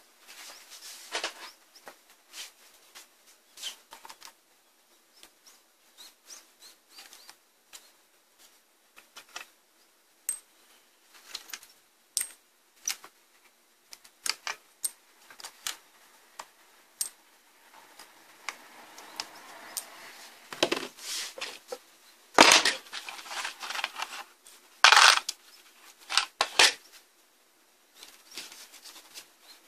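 Irregular small metallic clicks and scrapes of a hand tool working screws and parts inside a power inverter's aluminium case and circuit board, with a stretch of softer rubbing past the middle and two louder clattering knocks about three-quarters of the way through.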